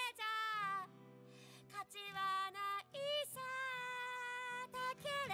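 Quiet music: a melody of long held notes over a steady accompaniment.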